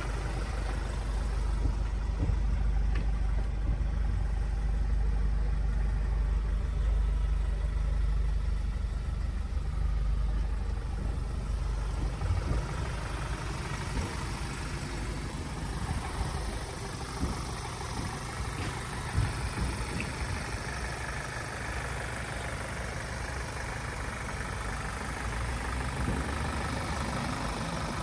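Ford Transit Custom 2.0 diesel engine idling steadily, a constant low rumble, with a few short knocks in the second half.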